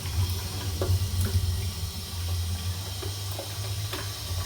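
Tap water running into a sink while vacuum parts are rinsed under it by hand, with a few light knocks, over a steady low hum.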